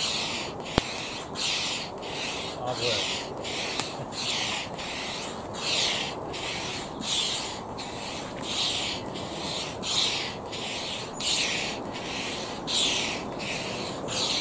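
Hand pump inflating an Itiwit two-person inflatable kayak: a rhythmic hiss of air with each stroke, a little over one stroke a second, as the chambers are pumped toward 1.5 on the pump's gauge. A single sharp click comes about a second in.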